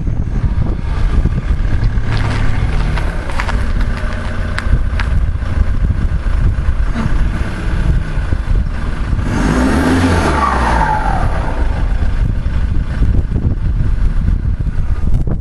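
Ford Mondeo ST TDCi turbodiesel running with a decatted exhaust, heard at the tailpipe, and blipped once about ten seconds in, the pitch rising and then falling back. As the revs drop, a falling chirp like a dump valve comes through: the exhaust is blowing from a split just before the back box.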